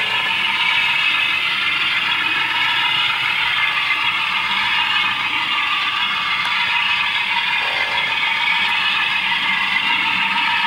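Model railway locomotive running along the track, a steady mechanical clatter and whir with its DCC sound decoder playing through its tiny onboard speaker, thin and without bass.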